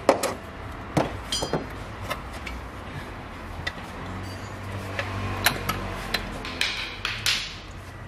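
Steel hand tools clinking and knocking against engine parts while the exhaust-manifold nuts are fitted: about ten irregular sharp clanks, a couple of them with a short metallic ring.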